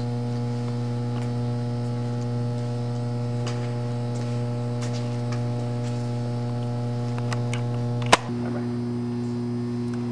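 Steady electrical hum, a low buzzing tone with several higher overtones, unchanging throughout. A single sharp click about eight seconds in, after which the hum shifts slightly in tone.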